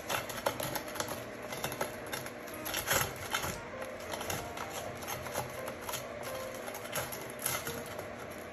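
Slotted spatula scraping and tapping against a wire fry basket while a battered onion is turned over: irregular clicks and rattles, one louder knock about three seconds in.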